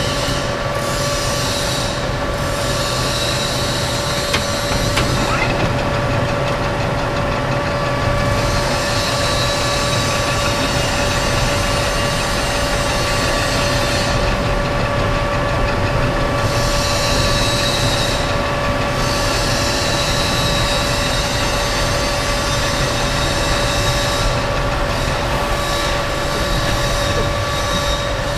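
Metal-turning lathe and workshop machinery running: a steady mechanical hum with a constant whine, and a high hiss that comes and goes for a few seconds at a time.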